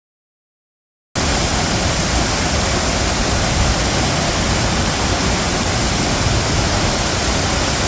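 Dead silence for about a second, then the steady rushing of a waterfall cuts in abruptly and holds loud and even.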